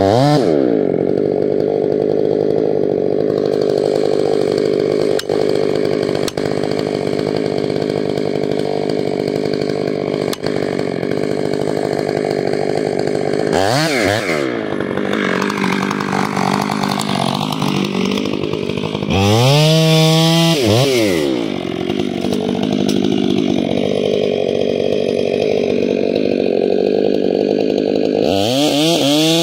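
Stihl 500i two-stroke chainsaw with a 34-inch bar running steadily at the tree. It is revved up and let drop back about halfway through and again about two-thirds through, and revs up once more near the end.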